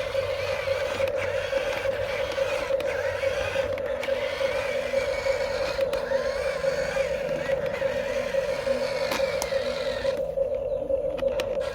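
Radio-controlled toy excavator running, its small motors giving a steady, slightly wavering whine, with irregular scraping and creaking from the working arm and a couple of clicks near the end.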